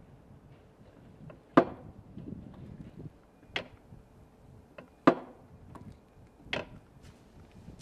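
Ishikawa-type stirring mortar grinder running through an operating test, with four sharp knocks about one and a half to two seconds apart: its pestles knocking in the turning mortar bowl. A faint low rumble fills the gaps between knocks.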